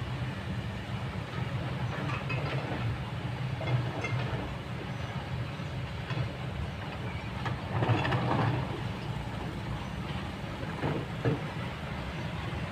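Kobelco long-reach excavator's diesel engine running steadily, with clattering from the bucket working rock and soil, loudest about eight seconds in and with two sharp knocks near eleven seconds.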